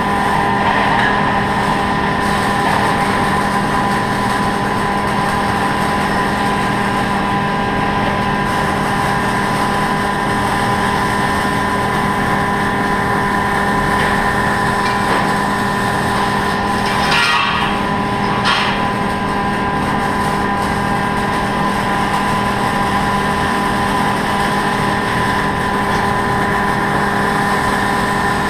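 Robotic MIG welder at work: a steady machine hum with several held tones over a rough, noisy hiss, and a brief louder burst about two-thirds of the way through.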